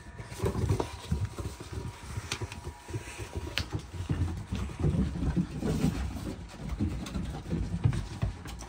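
Pit bull puppies scrambling and scuffling, a busy, irregular patter of paws with low thumps and a few sharp clicks.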